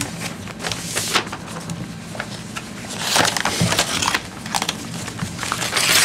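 Paper rustling and crinkling in irregular crackles, busiest about halfway through, as bid papers and envelopes are handled and shuffled, over a faint steady room hum.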